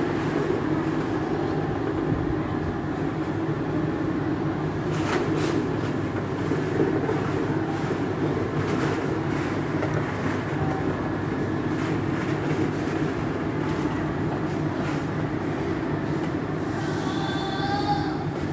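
Steady whooshing drone of the air blower that drives a ball-pit suction-tube wall, running without a break. A short high-pitched sound comes near the end.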